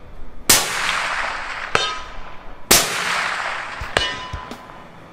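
Two shots from a suppressed scoped bolt-action rifle, about two seconds apart, each with a long echoing tail. Each shot is followed about a second later by the ring of the bullet striking a steel target downrange.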